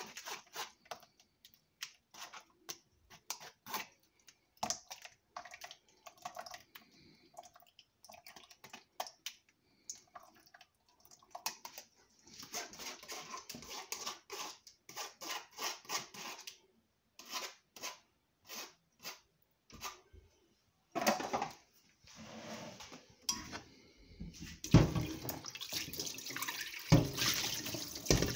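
Kitchen work: a string of light clicks and clatters of dishes and utensils, then running or poured liquid that grows louder in the last few seconds.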